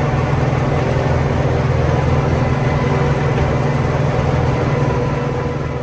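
Old farm tractor's engine running steadily under load, with a deep, even drone.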